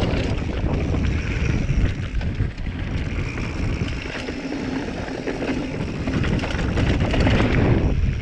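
Wind buffeting the action camera's microphone over the rumble of a Giant Trance full-suspension mountain bike's tyres rolling fast on a dirt trail, with short knocks and rattles from the bike over bumps.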